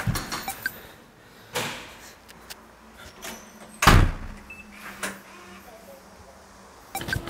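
Doors opening and closing off-screen in a home: a thump at the start, a shorter knock about a second and a half in, and a heavy door slam about four seconds in, the loudest sound.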